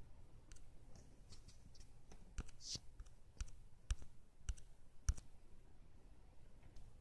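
Faint, irregular clicks and light taps, about a dozen in all, the sharpest about five seconds in, with a brief high hiss a little before three seconds in.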